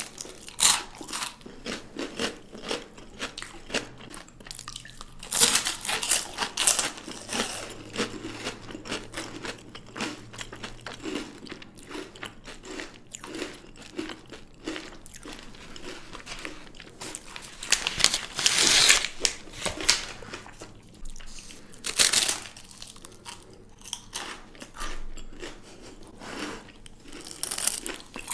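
Close-up eating of chocolate: crunchy bites and chewing, with a few louder crunching bites spread through.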